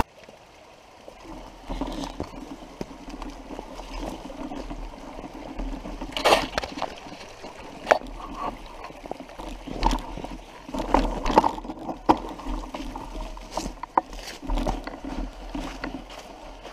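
Mountain bike rolling over a dirt forest trail: irregular rattles and knocks from the bike, with a low rumble of wind on the microphone that comes and goes.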